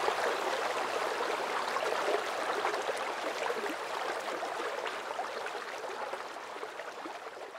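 Water splashing and trickling from several spouts into a fountain basin, a steady rushing noise that fades gradually near the end.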